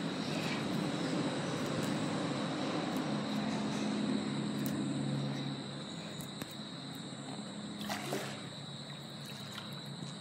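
Creek water trickling steadily, with a low hum that fades out about halfway through.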